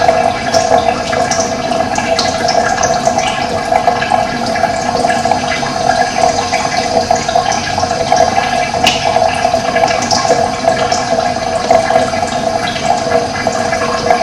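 Steady rush of running water, with scattered short bird chirps over it.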